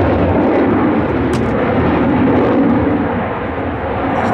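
Jet noise from a Boeing F/A-18F Super Hornet's twin General Electric F414 turbofan engines as it flies past: a loud, steady rush of noise that eases a little about three seconds in.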